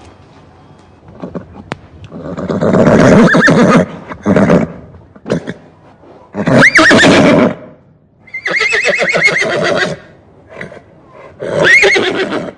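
Horse neighing: four long whinnies with a quavering, wavering pitch, the third trembling most, and a short call between the first two.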